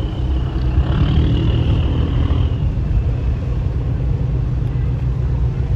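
Boat engine running with a steady low rumble, heard close by on the water.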